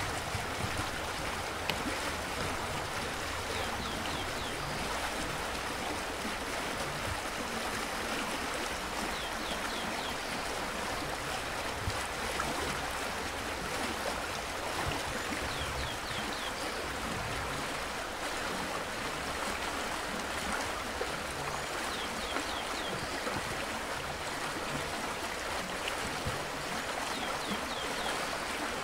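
Steady rush of a running stream. Over it, a bird gives a short high call of a few quick notes, repeated every five or six seconds.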